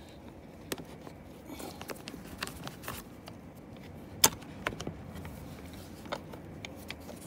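Scattered small clicks and taps of a screwdriver and hand working at the plastic side trim and seatbelt fitting of an Audi A6 C6 front seat, with one sharp click about four seconds in.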